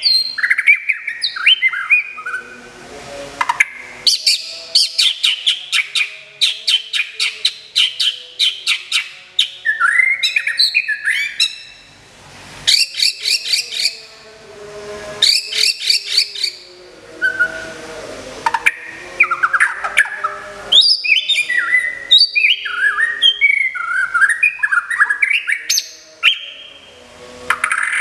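White-rumped shama singing a long, varied song: whistled phrases that glide up and down, broken by fast runs of short, sharp repeated notes, several a second, with brief pauses between phrases.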